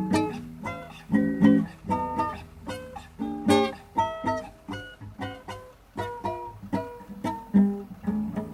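Acoustic guitar played solo, improvising a blues: a run of plucked single notes and short chords, each one ringing and fading.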